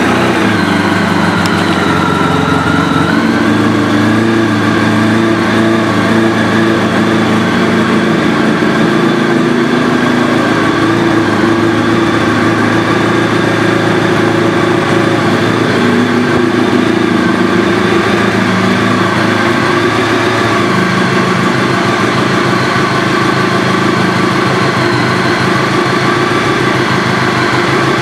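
Honda VFR1200F's V4 engine, fitted with an aftermarket exhaust, idling steadily just after being started.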